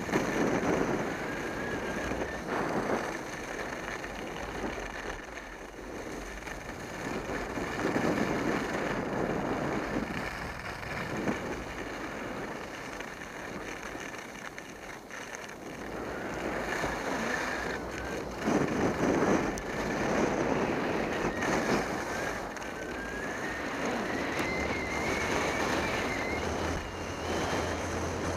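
Skis sliding and scraping over groomed snow, the scrape swelling every few seconds with each turn, with wind rushing over the microphone. A thin, wavering whistle runs faintly through the second half.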